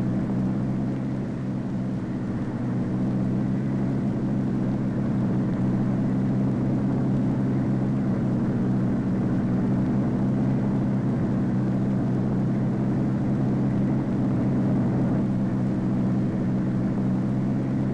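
Steady, unchanging drone of a jet engine on the Convair XF-92 delta-wing research jet at takeoff power during its lakebed takeoff run and lift-off.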